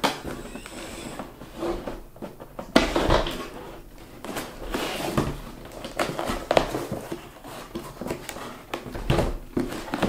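Large cardboard toy box being handled and opened on a tabletop: irregular scraping, rustling and knocks of cardboard against the table, loudest about three seconds in.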